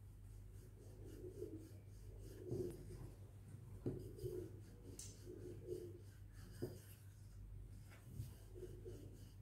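Wooden rolling pin rolling back and forth over momo dough on a bamboo chopping board: soft rubbing strokes about once a second, with a few light knocks of the pin on the board.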